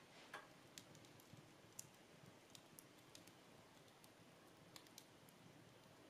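Real wood fire in a fireplace crackling faintly, with small sharp pops and snaps at irregular intervals, a slightly louder one near the start.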